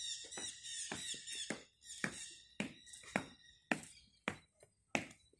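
Military boots marching on stone paving in a steady parade step, just under two steps a second. High chirping from birds sounds over the first two seconds.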